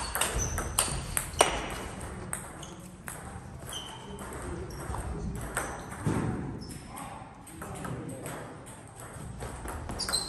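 Table tennis ball clicking sharply off paddles and table in a fast rally that stops about a second and a half in, followed by scattered ball taps and short high squeaks of sneakers on the court floor; quick hits start again near the end.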